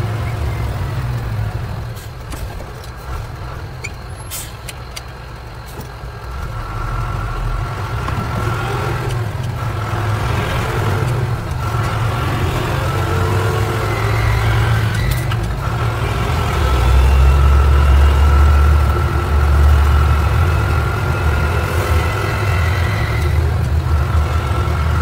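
A truck's engine and road noise heard from inside the cab as it drives along a street. The low engine drone grows louder about a quarter of the way in and is loudest around two-thirds of the way through.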